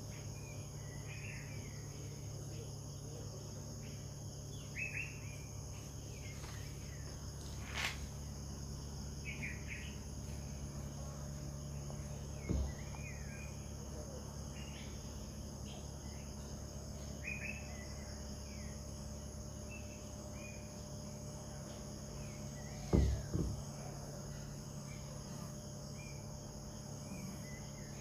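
Evening outdoor ambience: a steady high-pitched insect chorus with short bird chirps every second or two over a low steady hum. Two dull thumps stand out, one near the middle and a louder double one about three quarters of the way through.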